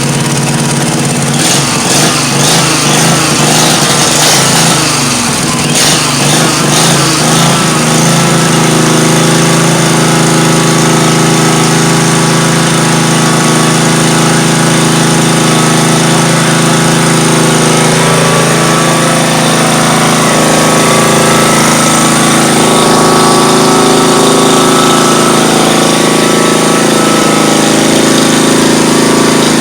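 Kawasaki FH430V 15 hp V-twin lawnmower engine running with no muffler fitted, a loud open-exhaust rattle. Its speed wavers unevenly for the first several seconds, then settles into a steady run.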